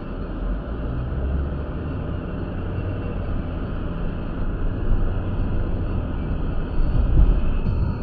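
Car interior road noise picked up by the dashcam's built-in microphone: a steady low rumble of the car driving on a wet road. There are a few stronger low swells about seven seconds in.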